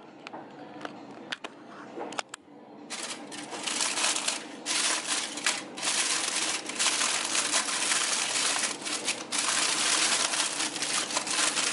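A sheet of kitchen wrap crinkling and rustling as it is handled and pressed over a dish of potatoes to cover them and keep them warm. It starts about three seconds in and goes on steadily to the end.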